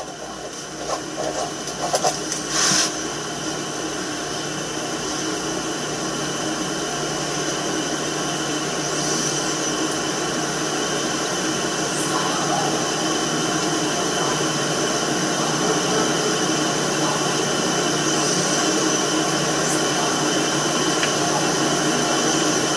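Steady background hiss with a faint low hum, slowly growing louder, with a short rustle about three seconds in. No voices or music.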